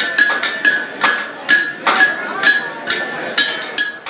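Hammer blows on an anvil, about three a second and a little uneven, each with a bright metallic ring, as a blacksmith forges nails. The blows stop abruptly near the end.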